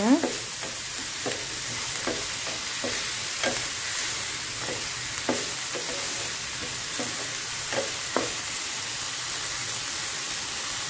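Shredded cabbage, carrot and onion sizzling in oil in a non-stick frying pan with a steady hiss, while a wooden spatula stirs them, scraping and knocking against the pan about once a second.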